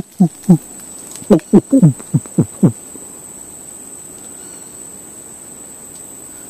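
A person imitating howler monkey calls: a quick run of about nine short grunts, each falling in pitch, stopping a little under three seconds in. A steady high insect whine runs underneath and is left alone afterwards.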